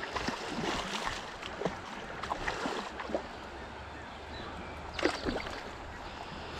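Steady wind and running stream water, with a few short faint clicks, one a little louder about five seconds in.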